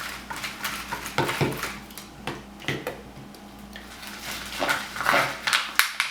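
A spoon or utensil scraping and clinking irregularly against a bowl as slime is stirred and mixed, busiest about a second in and again near the end.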